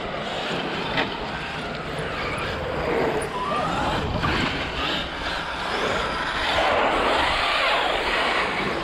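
Large radio-controlled monster truck, a Traxxas X-Maxx, being driven hard on frozen grass and asphalt: its electric motor whines up and down in pitch with the throttle over a steady rush of tyre noise. A short knock about a second in.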